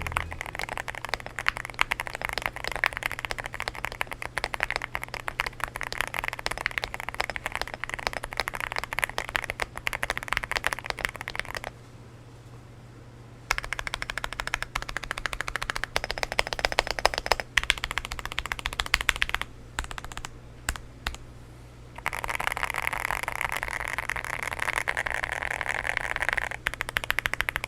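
Typing sound test on a stock M1V3 mechanical keyboard fitted with Akko Dracula switches: fast runs of key clacks, with two short pauses about twelve and twenty seconds in.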